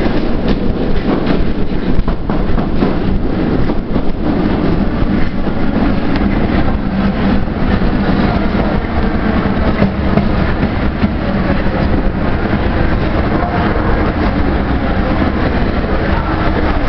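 Steel-wheeled MF67 Paris metro train running on its rails, heard from inside the car: a steady rumble and rattle of wheels and running gear, with a few sharp clicks in the first seconds.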